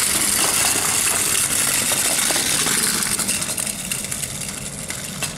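Clockwork motor of a tin wind-up motorcycle-and-sidecar toy, powered by a coiled flat strip spring, whirring with a fast, even clicking as the toy runs along a wooden floor. It grows fainter over the last couple of seconds.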